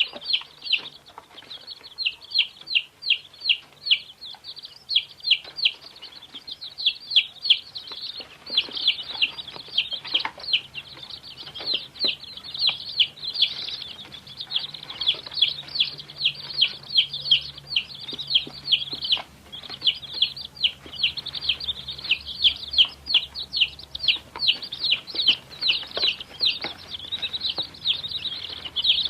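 Baby chicks peeping continuously: many rapid, high-pitched cheeps overlapping, several a second.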